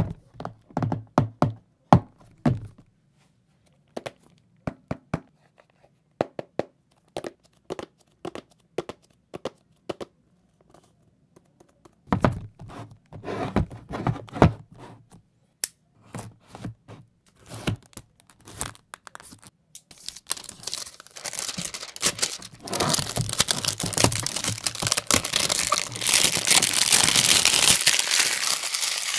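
Hands handling a cardboard phone box, with scattered taps, knocks and clicks. From about twenty seconds in comes a long, continuous crinkling and tearing as the box's plastic wrapping is torn open and pulled off.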